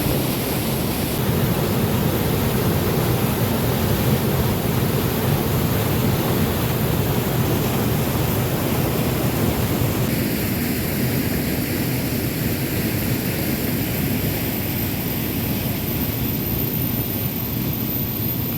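Waterfall rushing: a loud, steady sound of falling water, its higher hiss easing a little about ten seconds in.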